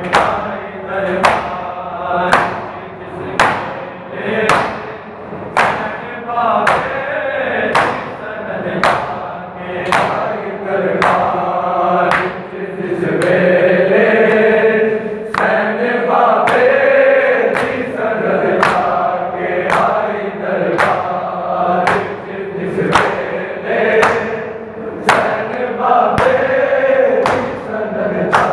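A group of men chanting a noha in unison while beating their chests in time (matam). The chest-beating gives sharp slaps about one and a half a second, which largely stop for a few seconds around the middle while the chant carries on.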